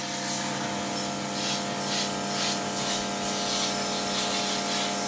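A machine running steadily: a motor hum with a hiss that swells and fades about twice a second.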